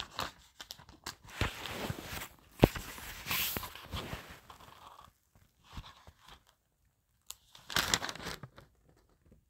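Rustling and crinkling handling sounds with scattered knocks, the sharpest about two and a half seconds in, then a pause and another short rustle near the end.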